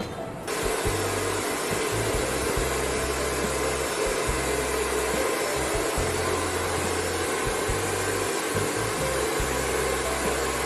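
Hand-held hair dryer blowing steadily while the hair is brushed out, switching on about half a second in and cutting off at the very end.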